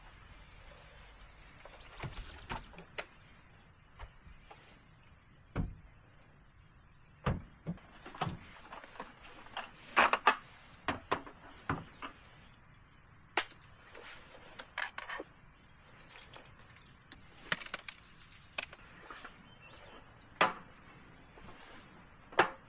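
Scattered knocks, clunks and clicks at irregular intervals, like objects being handled and set down, the loudest a pair about ten seconds in and another near the end.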